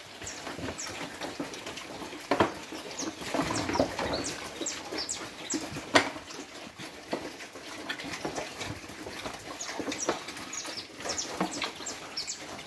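Pigs eating from feed pans, chewing and slurping wet feed, with a couple of sharp knocks about two and a half and six seconds in. Many short, high chirps run through it.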